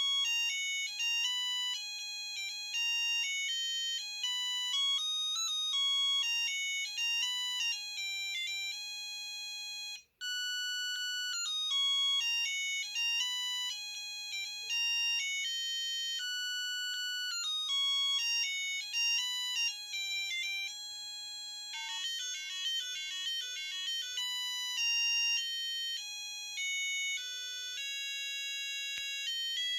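Samsung SGH-A300 mobile phone playing its electronic ringtone melodies through its small speaker, one beeping note after another. One tune breaks off about ten seconds in and another starts, and there is a passage of very fast rapid notes a little after the twenty-second mark.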